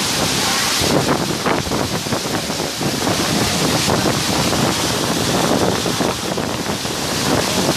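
Heavy rain and strong gusting wind, the wind buffeting the microphone in an uneven, rushing noise.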